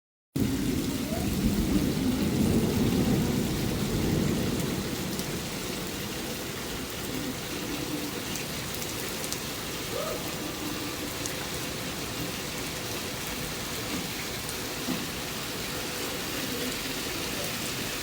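Steady rain during a thunderstorm. A low rumble of thunder starts with the sound and fades over the first four seconds, leaving the even hiss of rain.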